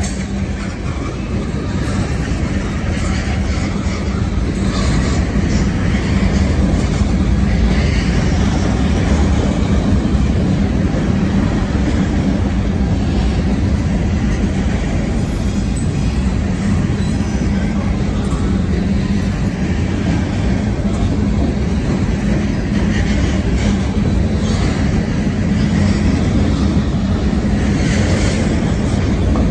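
CSX freight train's tank cars and covered hopper cars rolling past: a loud, steady rumble of steel wheels on the rails.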